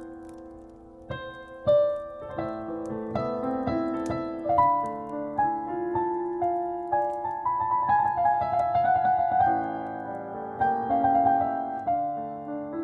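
Solo piano playing a slow melody over chords, with faint fireplace crackles underneath.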